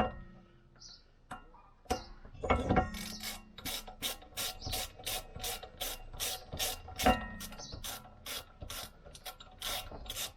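Ratchet being worked back and forth in quick even strokes, about three a second, tightening the small retaining screw that holds the brake disc to the wheel hub. A few sharp metal clinks of tools come in the first three seconds and another about seven seconds in.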